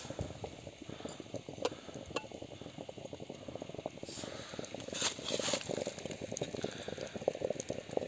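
Water boiling in a metal samovar: a steady, dense bubbling crackle, with a brief rustle about five seconds in.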